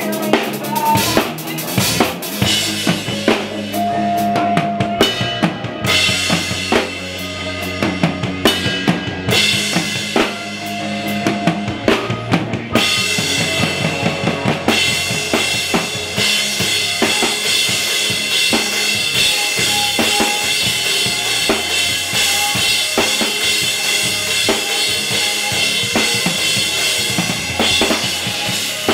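A drum kit heard up close in live band music: bass drum and snare hits drive the rhythm over steady pitched instruments. From about halfway through, cymbals ring continuously on top.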